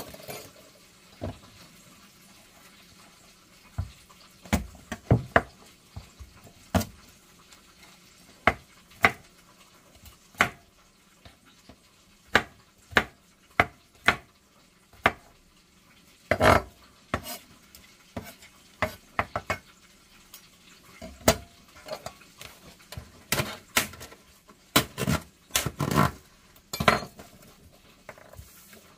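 Chef's knife chopping garlic cloves on a wooden cutting board: single knocks of the blade on the wood, coming irregularly and bunching closer together near the end.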